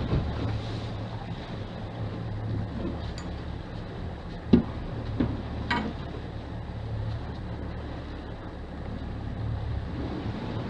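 Sportfishing boat's engines running steadily, a low drone. A sharp knock comes about four and a half seconds in and a lighter click about a second later.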